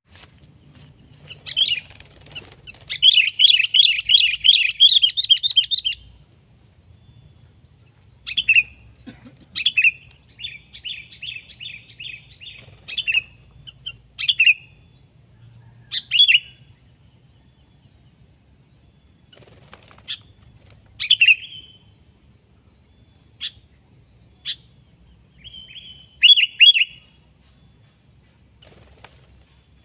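Sooty-headed bulbuls (kutilang) calling: a fast chattering trill for about three seconds early in the clip, the loudest part, then short bubbly calls scattered through the rest, with a steady faint high hiss underneath.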